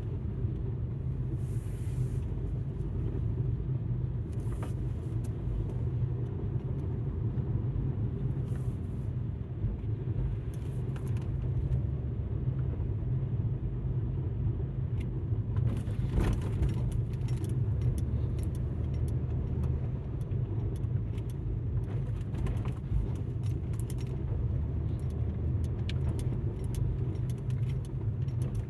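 Alfa Romeo MiTo on the move: a steady low drone of engine and tyres with scattered small clicks and rattles, like loose items jingling.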